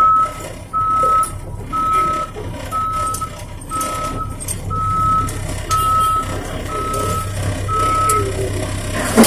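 Truck backup alarm beeping about once a second as the dump truck reverses, over the steady low hum of its engine. The beeps stop about a second before the end.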